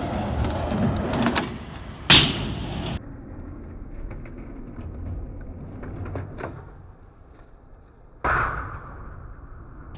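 Skateboard wheels rolling on smooth concrete, broken by sharp clacks of the board hitting the ground about two seconds in and again a little past eight seconds: the tail popping and the board landing during backside pop shove-its.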